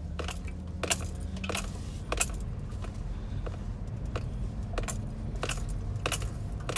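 Inside the cabin of a 2019 Chevy Tahoe driving up a snowy hill: a steady low V8 engine and road hum, with irregular sharp clicks and jingles, roughly two a second.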